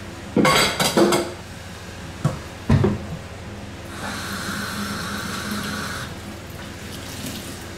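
Dishes and pots clattering in a kitchen sink: a few sharp knocks and clinks in the first three seconds, then a tap running for about two seconds.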